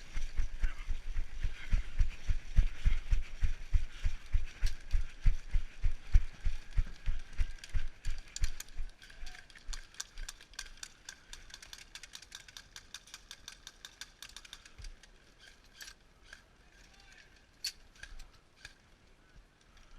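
A player's running footsteps, heavy thuds about two to three a second, jolting a body-worn microphone. After about eight seconds the thuds die down into lighter steps and rustling, with a few scattered sharp clicks.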